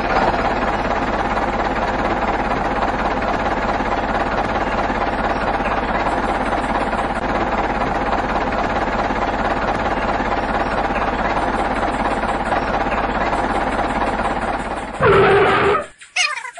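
Small electric motor and gears of a homemade toy tractor running steadily. It gets louder for a moment near the end, then stops abruptly.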